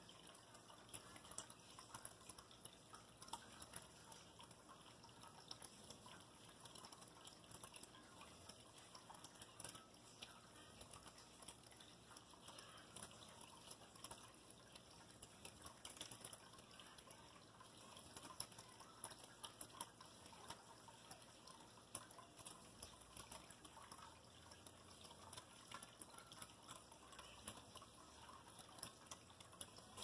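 Pet water fountain running: a faint, steady trickle of water falling from the spout into the basin, with many small drips and splashes.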